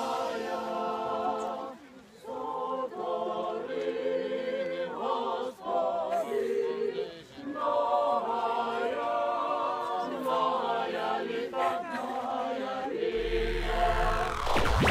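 A choir singing without accompaniment, several voices holding and shifting sustained notes. Near the end a deep electronic bass and rising sweeps come in as electronic music starts.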